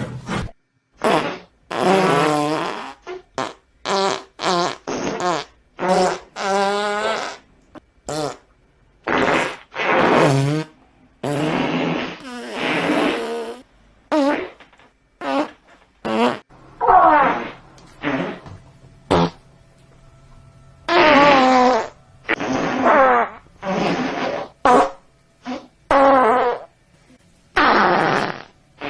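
A rapid string of fart sound effects: about two dozen separate farts, some short blips and some longer sputtering ones with a wobbling pitch, with brief pauses between them and a longer pause about two thirds of the way through.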